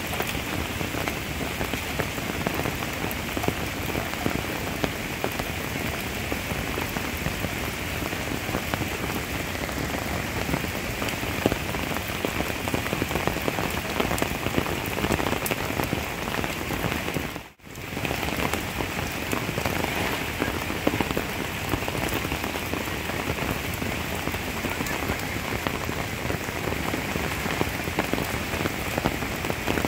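Rain falling steadily, a dense hiss of many small drop impacts. The sound drops out for a moment about two-thirds of the way through.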